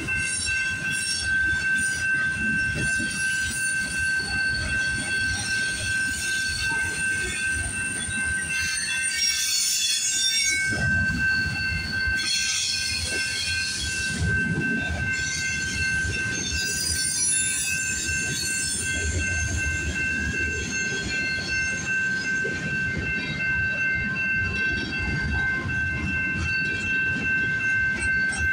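Freight train cars rolling steadily past, a continuous rumble of wheels on rails with steady high-pitched squealing tones over it.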